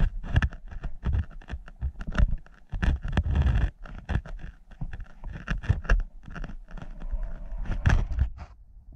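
GoPro in its waterproof case knocking and scraping about in stream water: rapid, irregular knocks and scrapes over a low rumble of moving water.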